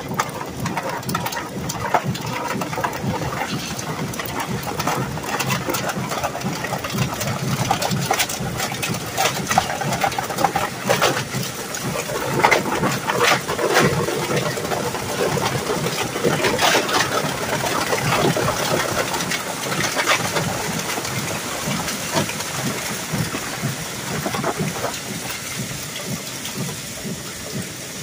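25 HP ReTech industrial shredder running, its rotating cutter discs chewing through plastic scrap. A steady machine noise is overlaid by a dense run of cracking and snapping, busiest in the middle and thinning a little near the end.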